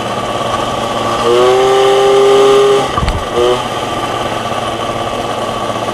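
MBK 51 Magnum two-stroke moped engine running steadily under way. A horn sounds for about a second and a half, then gives a short toot, with a single knock between them.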